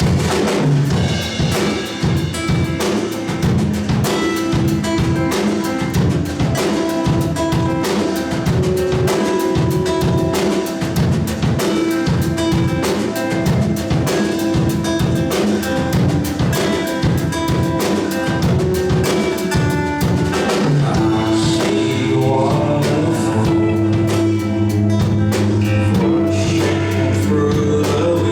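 Live rock band playing a song's instrumental opening: drum kit, bass and guitars. About twenty seconds in, the drumming thins out and long held bass notes take over.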